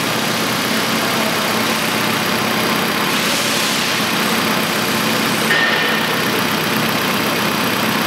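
2006 Nissan Altima four-cylinder engine idling steadily, running on all four cylinders now that the ignition coils are firing.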